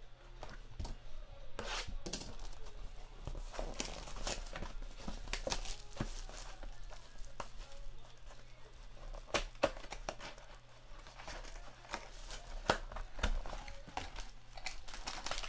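Clear plastic shrink wrap being torn and crumpled off a sealed trading-card box, with irregular crackling and rustling throughout.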